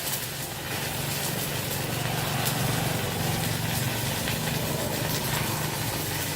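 Stick-welding arc from an IGBT inverter welder burning a 4 mm electrode at full power: a steady crackling sizzle with a low hum underneath.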